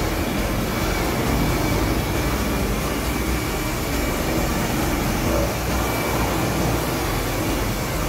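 Hand-held electric rotary polisher running steadily as its pad works over a car's painted body panel.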